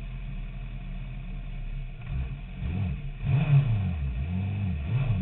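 Motorcycle engine idling steadily. From about two seconds in it revs up and down in repeated throttle blips, and gets louder.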